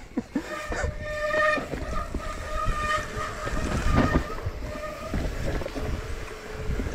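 Mountain bike disc brakes squealing in a steady high whine with several overtones for the first few seconds, fading later, over the low rumble of tyres on a wet dirt trail.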